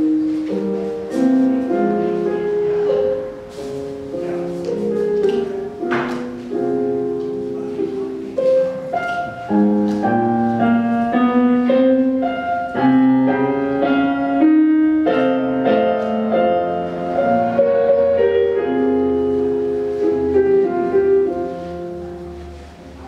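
Instrumental piano music: a slow melody of single and held notes over a lower line, with a few sharp clicks over it, the loudest about six seconds in.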